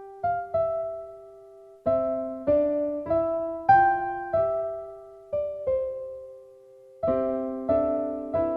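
Background piano music: a slow melody of struck notes and chords that ring and fade, pausing briefly twice.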